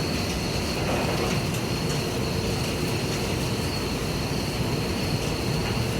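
Steady machinery noise of a coal-fired steamship boiler room, an even rumble and rush with a thin, constant high whine over it.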